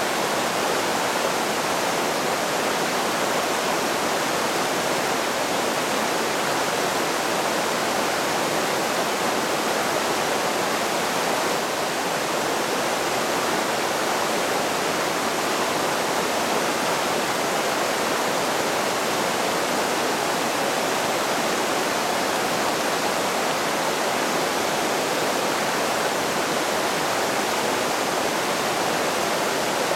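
Shallow, rocky mountain creek rushing over boulders in small rapids: a steady, unbroken rush of water.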